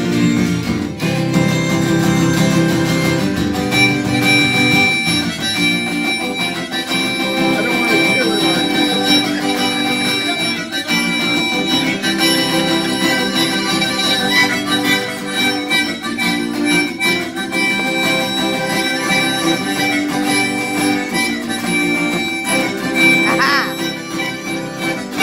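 Acoustic guitar strumming with a harmonica playing along in an instrumental passage, with long held high notes.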